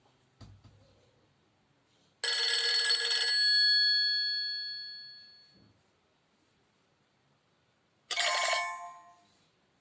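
Nokia Lumia 520 phone speaker playing its preloaded alert tones: a faint click, then a bright bell-like chime that rings out and fades over about three seconds, and near the end a shorter chime that dies away within a second.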